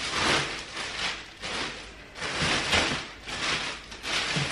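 Clear plastic packaging crinkling and rustling in a series of irregular bursts as plastic-wrapped stroller parts are handled and pulled up out of a cardboard box.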